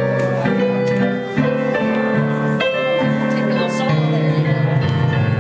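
Live keyboard music: an instrumental passage of sustained chords that change every second or so.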